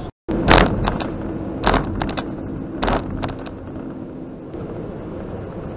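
Semi-truck cab noise on the highway: the engine and tyres run steadily, with several short, loud bursts of noise in the first three seconds. The sound drops out for a moment at the very start.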